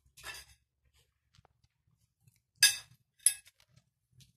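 A knife clinking against a plate: two sharp, short clinks about half a second apart, a little under three seconds in.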